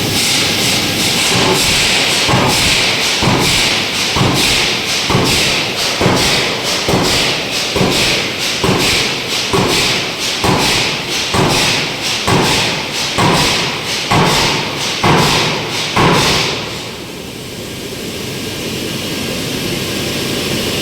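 Forging hammer striking metal in a steady run of heavy blows, about two a second, which stop about 16 seconds in. A steady machinery noise runs underneath throughout.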